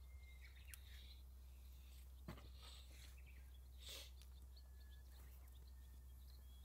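Near silence: quiet outdoor ambience with faint, short bird chirps and a couple of soft clicks.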